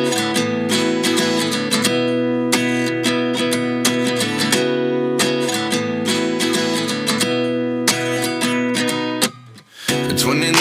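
Background music: a strummed acoustic guitar intro with a short break about nine seconds in.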